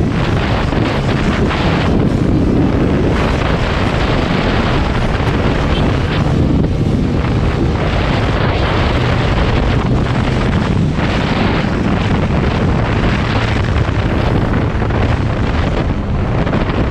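Heavy wind rushing over the microphone of a motorcycle riding at road speed, with the bike's engine droning steadily underneath.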